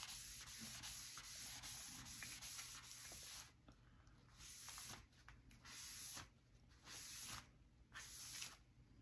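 A folded towel wiped across paper wet with alcohol ink, a faint scratchy rubbing: one continuous stretch, then separate strokes about once a second.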